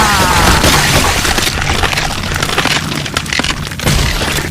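Cartoon explosion sound effect: a loud, long blast that rumbles and crackles, slowly dying down.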